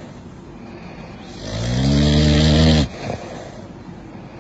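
A sleeping pug snoring: one long, deep snore starting about a second in and lasting about a second and a half, rising and then easing off before it stops sharply.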